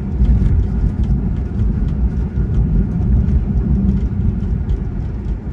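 Steady low rumble of tyre and road noise heard inside the cabin of a 2019 Tesla Model 3 electric car driving on a cold, snow-dusted road, with no engine note.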